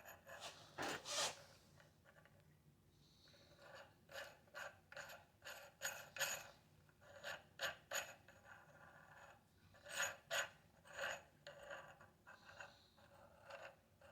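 Short, irregular metallic scrapes and light clicks of steel cogs being worked and handled off a 1970s SunTour Perfect freewheel.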